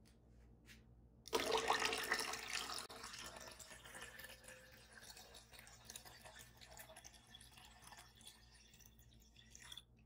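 Water poured into a glass pitcher of lemon juice and syrup. It starts suddenly about a second in, loudest and splashing for the first second or two, then settles into a steadier, quieter filling that stops abruptly near the end.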